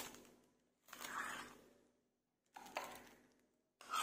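A metal spoon scraping soft egg-yolk paste off a plate into a plastic piping bag, in three short bursts.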